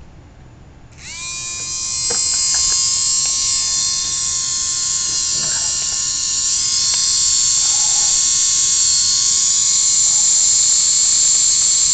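Small yellow slim slot car electric motor starting on a 12-volt supply and running free at high speed, about 20,000 RPM, with a loud, steady high-pitched whine. The whine starts abruptly about a second in and rises briefly in pitch as the motor spins up, then holds.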